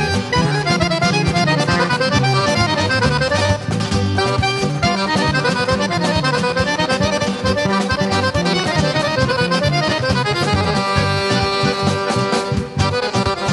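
Piano accordions playing a Roma folk melody, backed by bass guitar, acoustic guitar and drums.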